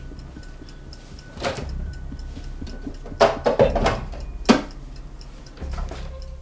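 Kitchenware handled at a counter: a knock about a second and a half in, a run of clattering knocks between three and four seconds, and a sharp knock, the loudest, at about four and a half seconds. Behind it runs a quick, steady clock-like ticking.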